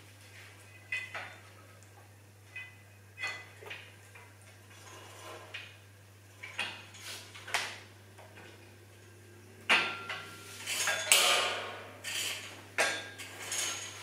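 Metal clinks and rattles of a steel cable and pulley parts being handled while the cable is threaded through the pulleys of a Smith machine cable station. The clinks come scattered at first, then bunch up and grow loudest from about ten seconds in, some with a short metallic ring.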